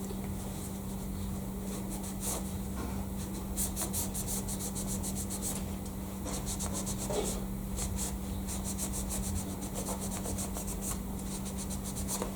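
Quick back-and-forth rubbing strokes on the metal of a milling vise, several strokes a second, in two runs with a short pause between them, as specks of paint and debris are cleaned off its seating surface.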